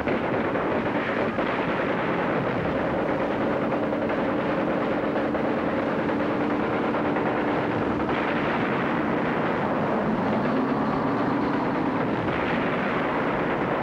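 Continuous loud din of an armoured river assault craft under way: its engine running steadily under rapid machine-gun fire as the landing area is shelled. The engine tone rises a little about ten seconds in.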